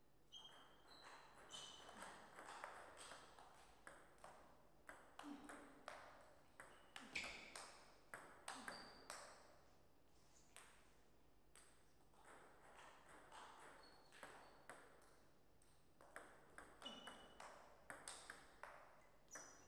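Faint table tennis rallies: a plastic ball clicking in quick runs off the rubber bats and the Donic table. There are two rallies with a lull between them, and a few short high squeaks.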